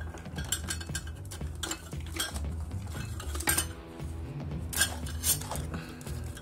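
Small hard objects clinking and knocking as someone rummages off to the side, several separate clinks over a steady low hum.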